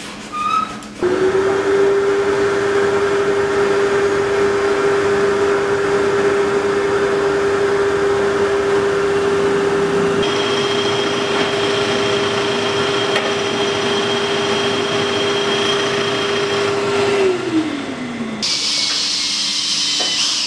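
Drill press boring a wooden disc, with a dust-extraction hose sucking at the bit, running with a steady hum. About three quarters of the way through it is switched off and winds down. Near the end a small power drill whines as it bores into a wooden dowel.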